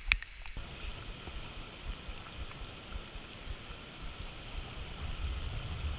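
Steady rushing noise of a stream's running water. It starts abruptly about half a second in, over a low rumble that grows louder near the end.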